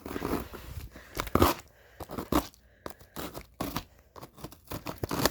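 Old cardboard box being torn and pried open: irregular tearing, scraping and crunching of cardboard and packing tape.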